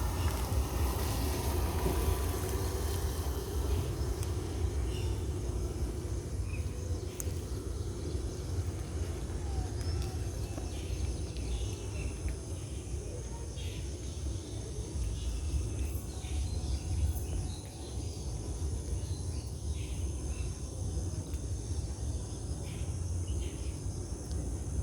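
Outdoor background noise: a steady low rumble with a thin high buzz above it and scattered faint clicks.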